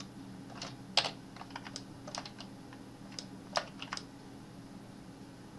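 Clicks of a computer keyboard and mouse: a scattered, irregular series of short sharp clicks, the loudest about a second in, thinning out after about four seconds, over a faint steady hum.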